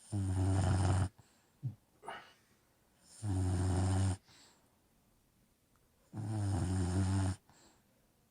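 Old English Bulldog snoring: three loud snores, each about a second long and roughly three seconds apart, with a couple of faint short breaths after the first.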